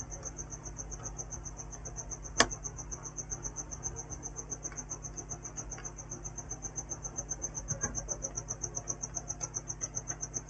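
A high-pitched chirp pulsing evenly at about six pulses a second, insect-like, with one sharp click about two and a half seconds in.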